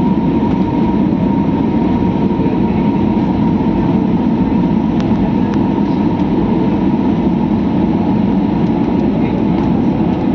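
Steady low rumble of a vehicle in motion, unchanging throughout.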